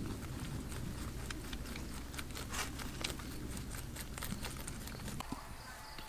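Several domestic rabbits chewing and tearing crisp cabbage leaves: a busy run of small crunches and leaf rustles that stops about five seconds in.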